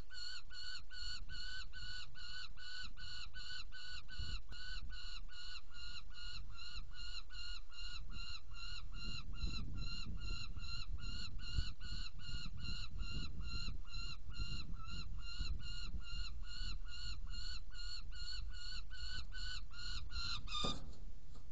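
Young saker falcon calling a long, even series of short, pitched calls, about two or three a second. The series cuts off suddenly near the end. Wind rumbles on the microphone underneath.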